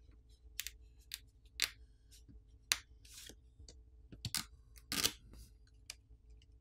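Short, sparse clicks and crackles of a plastic pry pick and fingers peeling adhesive graphite film and lifting the wireless charging coil sheet off a smartphone's internals, the strongest a brief crackle about five seconds in.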